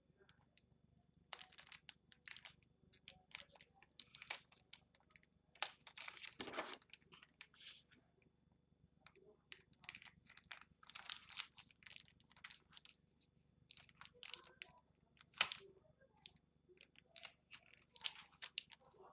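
Plastic packaging being handled and pulled open by hand: faint, irregular crinkles, rustles and small clicks, with a louder rustle about six seconds in and a sharp click about fifteen seconds in.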